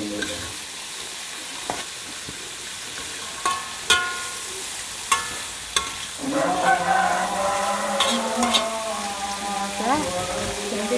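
Bitter gourd and anchovies sizzling in oil in an aluminium wok as a metal spatula stirs them. The spatula scrapes the pan and now and then strikes the wok with a sharp ringing clink, about seven times. From about six seconds in, a louder pitched background sound joins the sizzle.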